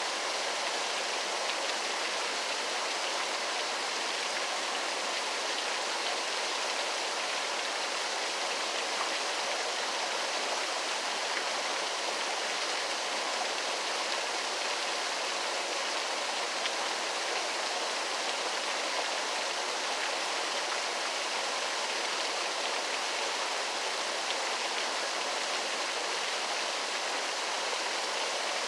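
Waterfall's falling water making a steady, even rushing hiss, with little low rumble.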